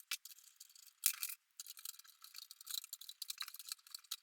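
Light metallic scraping, rattling and clicking of a thin metal shield inside an iMac G4 being handled and fitted back into place.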